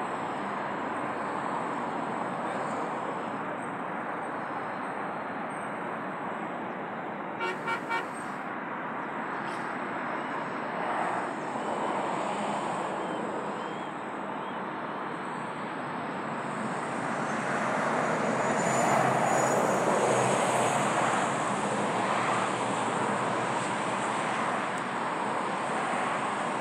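Steady outdoor rushing background noise that swells a little past the middle, with three short horn toots in quick succession about seven and a half seconds in.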